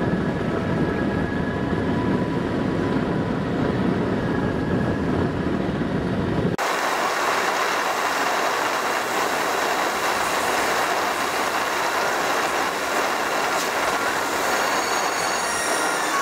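Steady road and tyre noise inside a moving car on a wet highway. About six and a half seconds in it changes abruptly from a low rumble to a brighter hiss with faint high whining tones.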